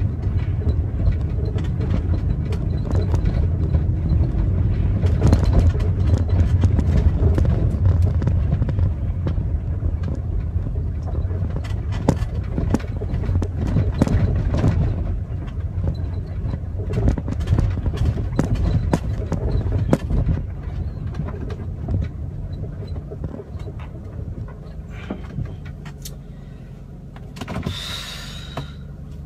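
Road and engine rumble of a moving car heard inside the cabin, a steady low drone that quietens over the last third. A brief higher-pitched sound comes near the end.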